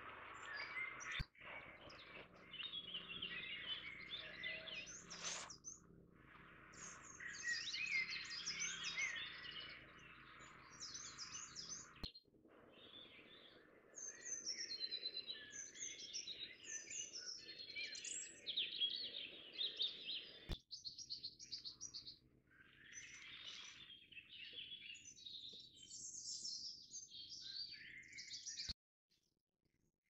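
Woodland birds singing, several at once: a dense mix of quick chirps, whistles and trills. It cuts off abruptly near the end.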